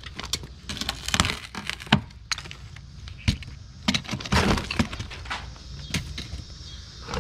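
Rotten wooden sill plate cracking and knocking as it is broken out, in an irregular string of sharp cracks and knocks.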